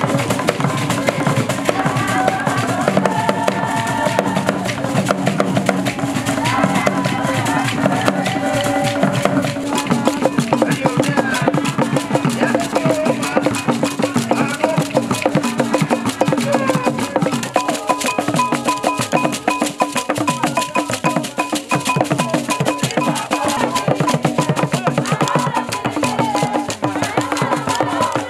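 Live West African Ewe drumming ensemble: several rope-tensioned barrel drums struck with wooden sticks and bare hands in fast interlocking rhythms, with sharp stick clacks on top and a group singing along. A high, repeated ringing tone joins in over the second half.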